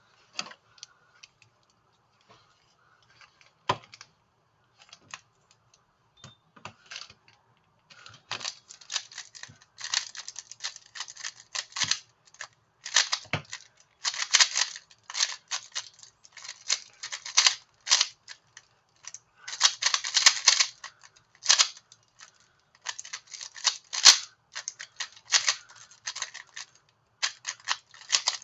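Quick, irregular plastic clicks and clacks, scattered at first and then coming in dense runs from about eight seconds in.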